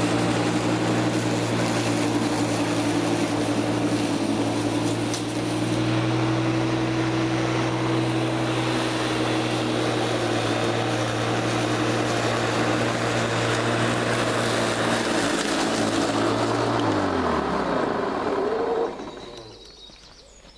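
Electric lawn mower with a belt reduction drive running steadily at full speed with a motor and blade hum. About 16 seconds in it is switched off, and the motor and blade wind down in pitch, stopping about 19 seconds in. The belt has just been refitted and tensioned after a repair.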